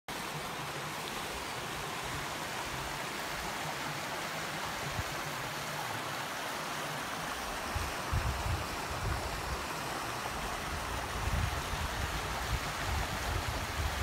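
Mountain stream running steadily over rocks and shallow riffles, a continuous rushing of water. From about eight seconds in, irregular low buffeting on the microphone comes and goes over it.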